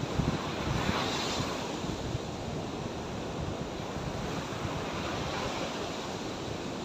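Sea surf washing onto the shore, with a wave breaking about a second in, and wind rumbling on the microphone.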